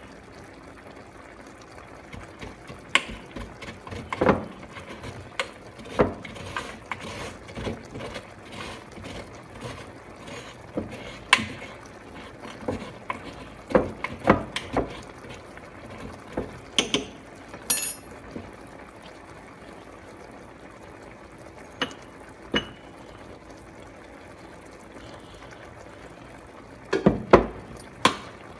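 Kitchen utensils and containers clattering: a run of short knocks and clicks, thickest in the first half, a nearly quiet stretch broken by two clicks, then a few more knocks near the end.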